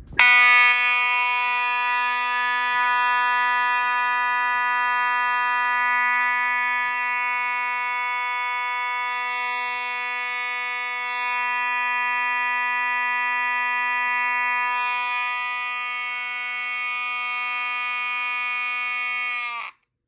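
FOS 6120 ceiling-mount fire alarm horn strobe sounding one loud, continuous, steady horn tone, in healthy working order. Just before the end it cuts off, the pitch sagging briefly as it stops.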